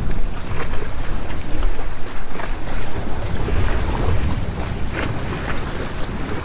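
Wind buffeting the microphone over choppy water lapping against the boat and rocks, with a few short splashes.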